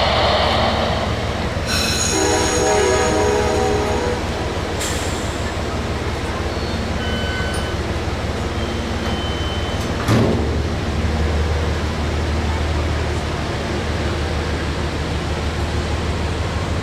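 Amtrak Amfleet passenger train at a station, a steady low rumble, starting to pull out. A short pitched sound comes about two seconds in, and a sharp clunk about ten seconds in. After the clunk the rumble grows as the coaches begin rolling past.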